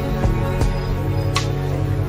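Soft instrumental background music of sustained notes, with a bright hit about every second and a half.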